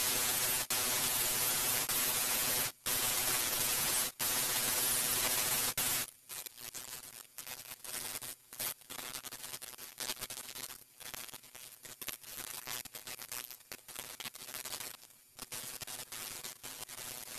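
Handheld electric belt file sanding the edges of a wooden handle, running steadily with a few short breaks. After about six seconds it gives way to a hand file rasping back and forth on the wood in uneven strokes.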